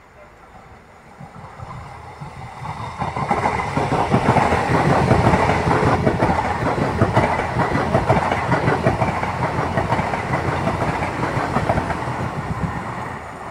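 PKP Intercity electric multiple unit passing at speed, its wheels clattering on the rails. The sound builds over the first few seconds, is loudest in the middle, and slowly fades as the train draws away.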